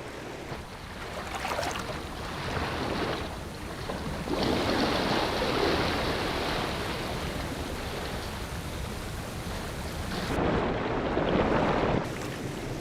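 Rushing water of a river waterfall, a steady roar that steps louder about four seconds in and again near the end before cutting off suddenly.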